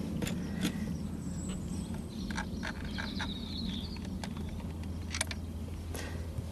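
Scattered light clicks and taps of plastic interior trim being handled and worked loose, over a steady low hum.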